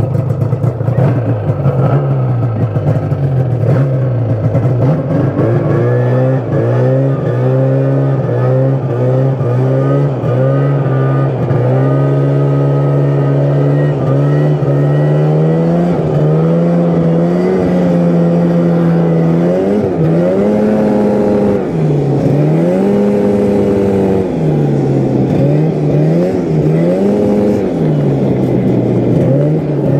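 Yamaha Phazer II snowmobile's two-stroke engine running under way, its pitch steady at first, climbing slowly, then rising and falling repeatedly with the throttle in the last third. After the engine and carburettor rebuild it is running well.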